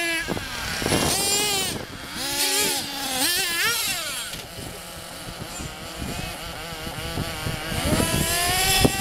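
Small nitro engines of HPI Trophy Truggy 4.6 RC trucks revving in quick rising and falling whines, dropping to a quieter running sound midway and climbing in pitch again near the end. A short knock comes just before the end.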